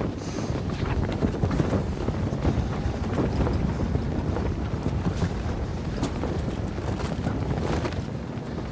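A storm heard from inside a canvas tent: steady wind, with many small hits of large hailstones striking the canvas.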